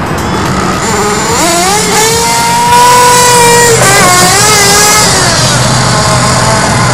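Small nitro engine of a Kyosho RC buggy (Picco), running on a new glow plug and revving hard as the buggy accelerates away. The pitch climbs from about a second in and holds high, dips and surges again near four seconds, then falls away after five seconds.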